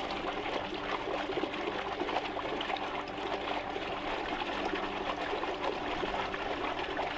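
Water trickling steadily into a garden pond from its spout, with a faint steady hum underneath.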